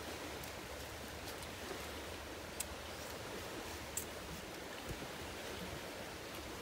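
Steady hissing outdoor background noise, with three sharp clicks spread through the middle.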